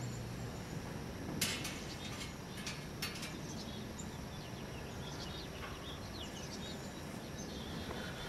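Quiet outdoor background noise with birds chirping faintly now and then. There are also two brief hissing bursts, about a second and a half in and around three seconds.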